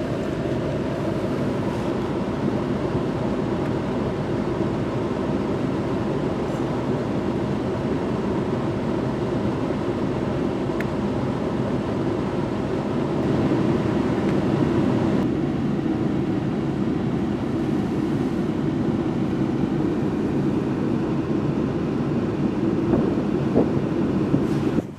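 A van's engine running steadily, heard from inside the cab, with a constant low rumble that swells slightly about halfway through.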